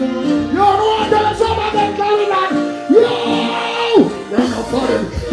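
Live reggae band playing, with a male voice holding long sung notes over it. The bass drops away for a couple of seconds midway, then returns.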